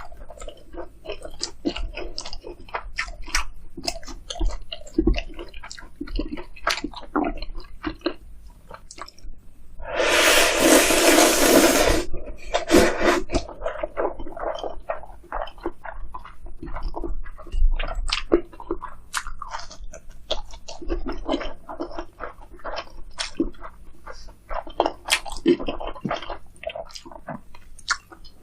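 Close-miked chewing of crispy fried food, with crunching crackles and wet mouth sounds. About ten seconds in comes a loud slurp lasting about two seconds, noodles being sucked in.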